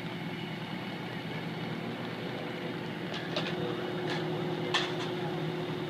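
Fire engine's diesel running steadily with a low hum, as it does while driving the truck's water pump for the hoses. Several short, sharp clacks come over it in the second half.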